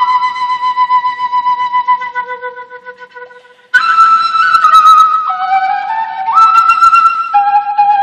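Solo wooden Andean end-blown flute playing a slow melody. A long held note fades away, then after a brief pause a louder phrase starts a little past halfway, with notes stepping down and back up and sliding from one pitch to the next.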